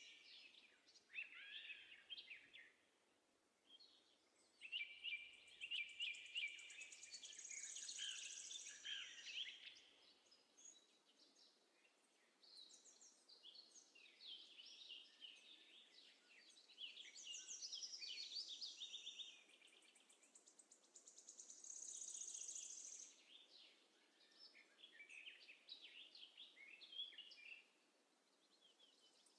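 Faint birdsong: high chirps and quick trills come in bursts a few seconds long, with short gaps between them.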